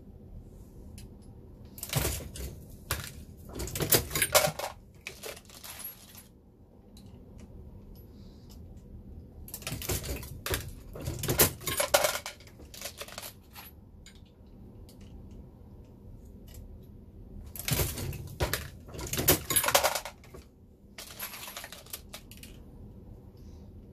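Dillon Square Deal B progressive reloading press being cycled: clusters of metallic clanks and brass clinks as the handle is worked and a cartridge goes through the stations. The clusters come three times, about eight seconds apart, with softer handling between.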